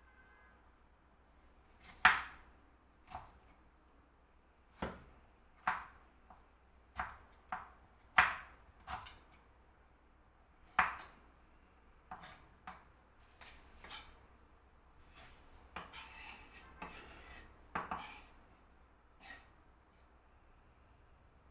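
Knife cutting on a chopping board: irregular single strokes, roughly one a second with some pauses, a few much harder than the rest. A short scraping sound, as of food pushed across the board, comes about three-quarters of the way through.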